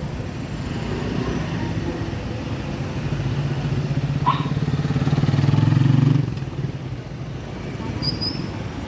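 Motorcycle engine running, building louder past the middle and dropping off sharply about two-thirds of the way through.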